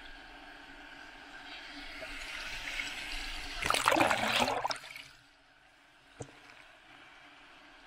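Ocean wave breaking over a camera at the water surface. The hiss of whitewater builds for a couple of seconds and peaks in a loud churning rush about four seconds in as the wave washes over, then drops away suddenly.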